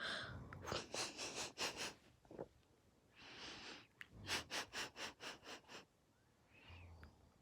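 Breathing of a sleeping snorer: two quick runs of short sniffing puffs, about five or six a second, with one longer breath between them and a faint low snore near the end.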